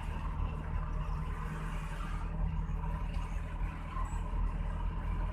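Steady engine and road noise of a moving vehicle, a continuous low rumble.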